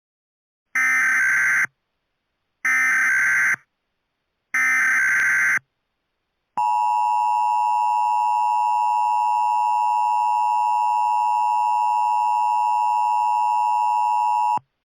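Emergency Alert System tones: three roughly one-second bursts of screeching SAME digital header data, then the steady two-tone EAS attention signal held for about eight seconds, which opens a new alert.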